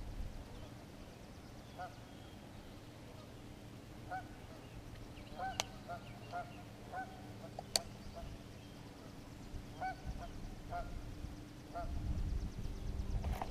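Faint honking of geese: short calls in small scattered groups, with two sharp clicks near the middle.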